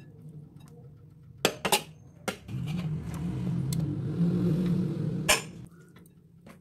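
Cooking pan clinking against a ceramic plate as stir-fried bean sprouts and mushrooms are tipped and scraped onto it: a few sharp clinks, the loudest near the end. A low steady rumble fills the middle three seconds.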